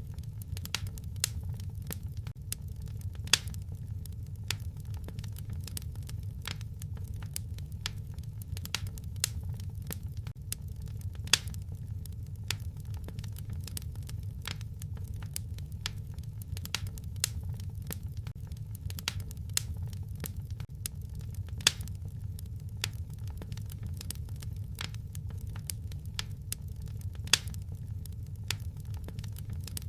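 Wood fire crackling in a fireplace: irregular sharp snaps and clicks, with a few louder pops, over a low steady rumble.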